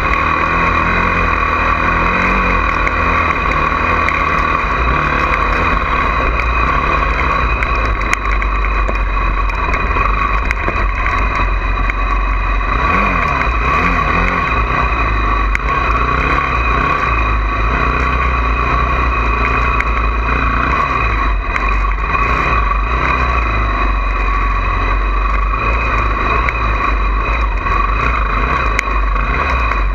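Honda CRF450R single-cylinder four-stroke dirt bike engine running and revving, under a steady low rumble.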